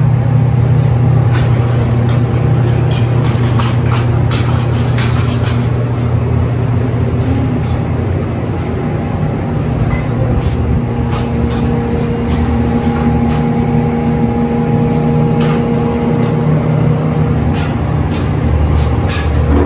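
A steady low mechanical hum runs throughout, joined about halfway by a few higher steady tones, with scattered clicks and knocks over it.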